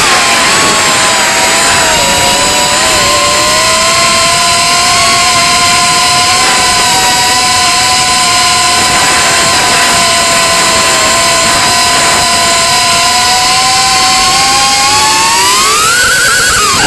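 Brushless motors of a Reptile Cloud 149 V2 FPV quadcopter whining at a steady pitch, two separate tones sounding together, then rising sharply in pitch near the end as the throttle goes up. This is the odd motor sound that the title flags as strange.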